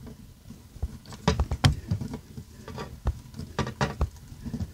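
Hand screwdriver driving a screw through a plastic LED dome light fixture into an RV ceiling panel: irregular small clicks and scrapes, coming in short clusters.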